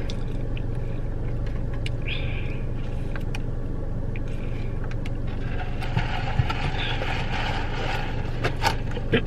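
Steady low hum of a car's running engine, heard from inside the cabin, with a few soft clicks of chewing.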